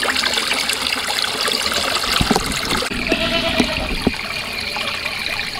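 Water running and trickling steadily into a livestock water trough. A few light knocks and a short animal call come about three seconds in.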